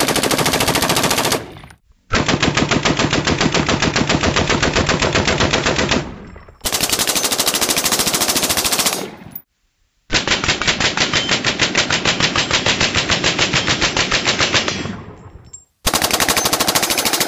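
AR-pattern rifle fitted with a muzzle compensator firing long bursts of full-automatic fire: five runs of rapid, evenly spaced shots, each lasting about two to five seconds, with short breaks between them.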